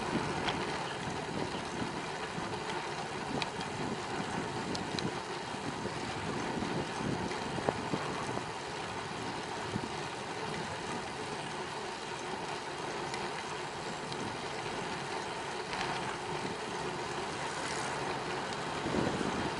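Steady wind and rolling noise from a bicycle ridden along a paved cycle path, with a few small clicks and knocks from the bike.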